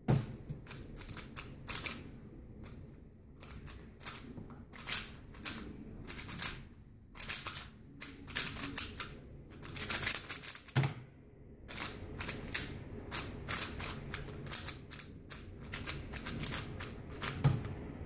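A plastic 3x3 speedcube being turned very fast, a dense clatter of clicking turns in quick runs with brief pauses. Three low knocks stand out: one at the start, one about eleven seconds in and one near the end.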